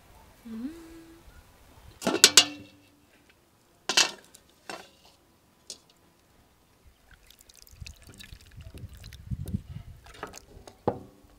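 Two loud metal clanks with a short ring, about two and four seconds in, from a lid and ladle on a large metal cauldron. Then a ladle scoops soup from the pot and pours it into a bowl, with liquid splashing and dripping.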